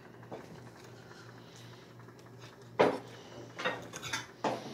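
A few short knocks and clatters, the loudest about three seconds in and a few smaller ones after it, over a low steady hum.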